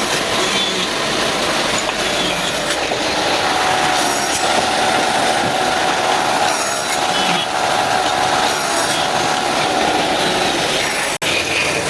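Power woodworking machinery running steadily, a dense noisy sound with a faint whine; it breaks off for an instant near the end.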